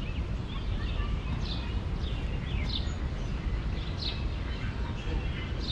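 Songbird chirping in short falling notes, roughly one a second, over a steady low rumble of background noise.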